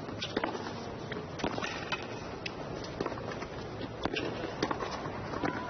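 Tennis match court sound: a steady crowd hum with irregular sharp knocks and clicks from play on court.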